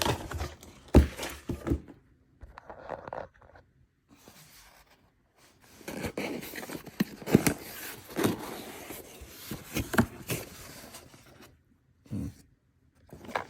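A box and its packaging being handled and unpacked: sharp knocks and bumps, then a long stretch of scraping and rustling with clicks as parts are taken out, and one more knock near the end.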